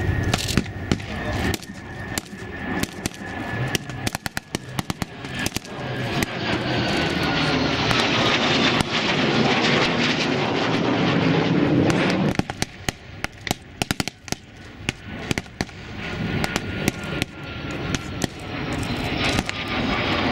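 Small-arms and machine-gun fire in scattered single shots and rapid bursts. Over it an aircraft engine swells from about six seconds in, with a slowly falling whine, and drops away near twelve seconds in.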